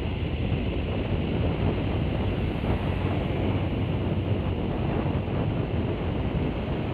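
Steady wind noise on the microphone mixed with road and engine noise from moving vehicles, with no distinct events.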